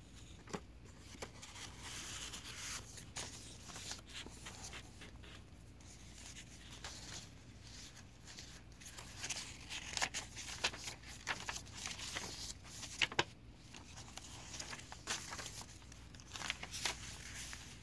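Paper pages and inserts of a thick handmade journal being turned and handled: irregular rustling and crinkling with scattered short ticks and taps, a little busier after the halfway point.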